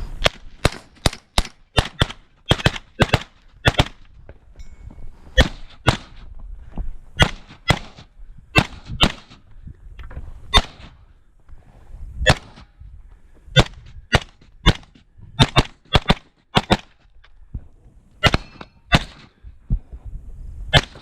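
Suppressed AR-15 rifle firing rapidly, dozens of sharp shots in quick pairs and strings, with a few brief pauses between strings.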